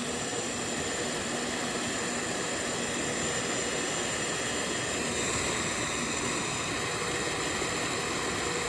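Electric heat gun running steadily, its fan blowing a constant rush of air over a faint motor hum, held on a tight part to heat it loose.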